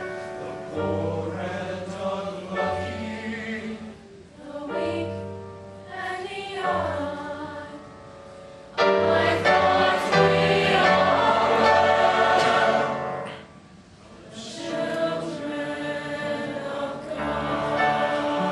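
High school show choir singing a slow song, with held chords. A sudden louder, fuller passage enters about halfway through, then fades back down briefly before the singing resumes.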